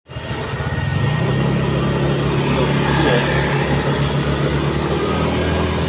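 Motor scooter engine running at a steady speed close by, a constant low hum over road and wind noise.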